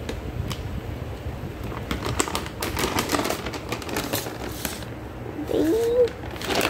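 Plastic bag of Pedigree Focus dry dog food crinkling and rustling as it is opened and handled, with the hard kibble inside rattling in a run of quick clicks. Near the end comes a short vocal sound that slides up in pitch.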